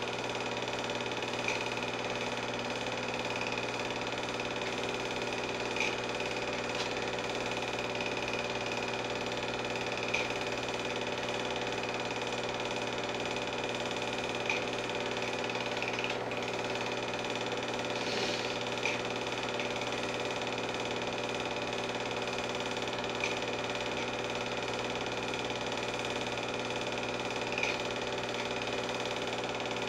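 Home-movie film projector running: a steady mechanical whir and hum made of many even tones, with faint clicks every few seconds.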